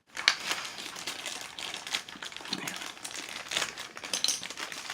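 Paper and plastic toy packaging crinkling and rustling as it is handled, with many small irregular crackles.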